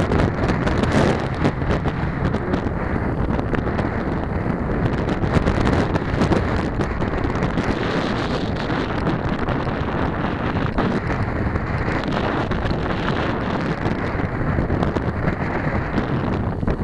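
Wind buffeting the microphone of a camera on a moving bicycle: a steady rushing rumble, with frequent small knocks and rattles as the bike rolls along the towpath.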